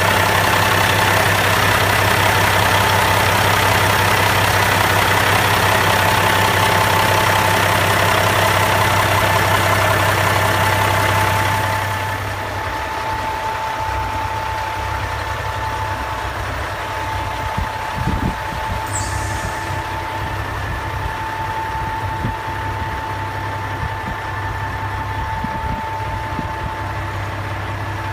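Caterpillar 3406C inline-six diesel in a 1987 Freightliner FLC idling steadily, with a steady high whine over the low idle. It is loud up close for about the first twelve seconds, then quieter for the rest.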